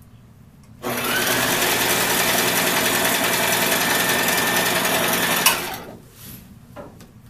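Domestic electric sewing machine starts about a second in and stitches steadily through fabric for about four and a half seconds, then stops with a sharp click. A few faint clicks and rustles of the fabric being handled follow.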